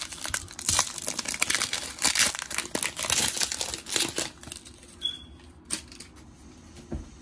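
A trading-card pack's wrapper crinkling as it is torn open by hand, a dense crackling for about four seconds, then fainter handling of the cards with a few light clicks.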